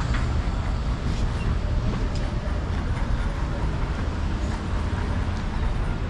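Outdoor street ambience: a steady low rumble with a few faint, scattered ticks and taps.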